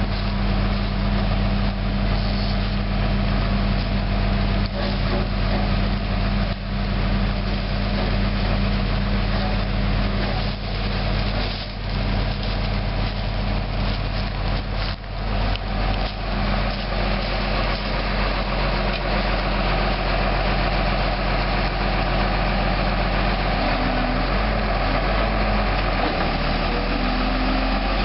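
Diesel engine of a John Deere 644H wheel loader carrying a tree spade, running steadily, with a few knocks in the first half. Near the end the engine note shifts as the loader backs away from the tree.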